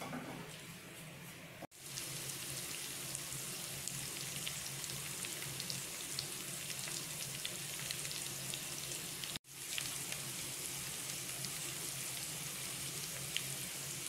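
Pork with carrots, green beans and onion sizzling in a wok, a steady frying hiss with small scattered pops; it breaks off for an instant twice.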